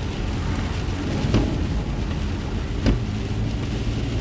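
Steady road and rain noise inside a car driving through heavy rain, with a low hum. Short knocks repeat evenly about every second and a half, like windshield wiper strokes.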